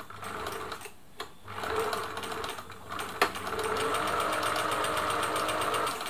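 Singer 766 electric sewing machine stitching in three runs, stopping briefly twice, with a sharp click about three seconds in before a steady final run that cuts off at the end: a back tack being sewn, forward, in reverse, then forward again.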